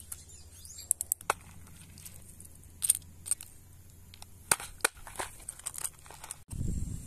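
Hands handling plastic fishing tackle, a plastic lure box and a plastic bag of bait: scattered sharp clicks and short crinkling rustles. Near the end a louder low rumbling noise starts abruptly.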